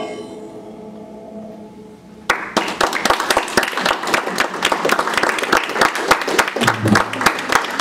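The last notes of the theremin and wind duet fade out over about two seconds, then audience applause breaks out suddenly and carries on.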